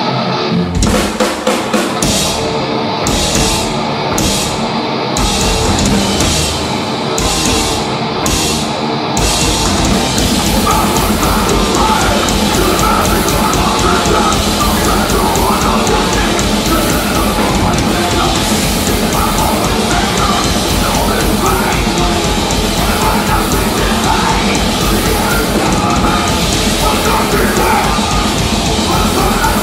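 A thrash metal band plays live: distorted electric guitars, bass and a drum kit. For about the first nine seconds the band plays stop-start hits with short gaps between them. Then it breaks into continuous full-band playing with steady drumming.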